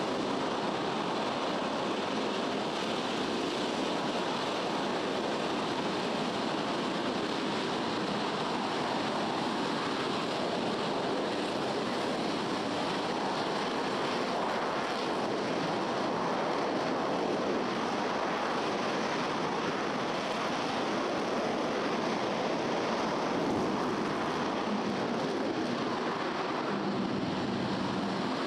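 Rocket engine firing on a static test stand: a steady, unbroken roar of noise with no change in level.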